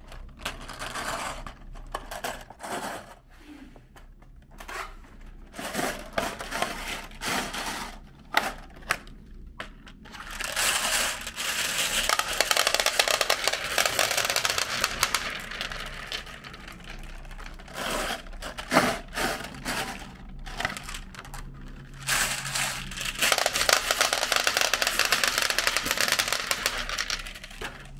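Glass marbles clicking and rattling as they are tipped out of clear plastic clamshell boxes onto a plastic tray, with the boxes crinkling. Scattered clicks at first, then long runs of dense clattering about ten seconds in and again near the end.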